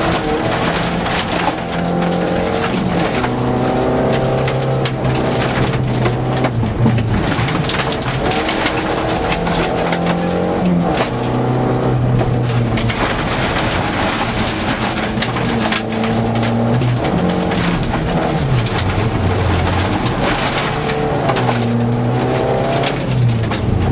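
A rally car's engine at full throttle from inside the car, its pitch climbing through each gear and dropping at every shift, again and again. Gravel rattles against the underside throughout.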